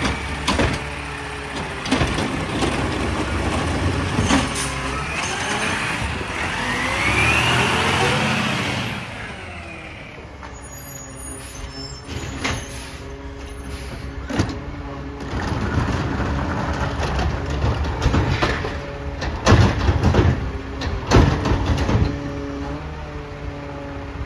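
McNeilus ZR automated side-loader garbage truck on a Peterbilt 520 chassis working its hydraulic arm to empty trash carts. The engine rises in a whine as the arm cycles, then idles with sharp knocks and bangs near the end as a cart is shaken into the hopper.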